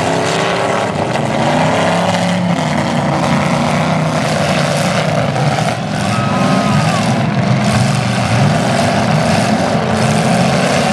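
Several demolition derby cars' engines revving hard and unevenly as they push against one another in the dirt.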